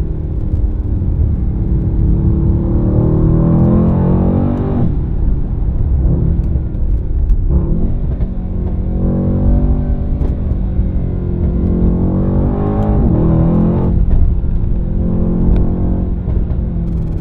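2017 Mercedes-AMG E63 S's twin-turbo 4.0-litre V8 being driven hard, its note climbing and falling back several times.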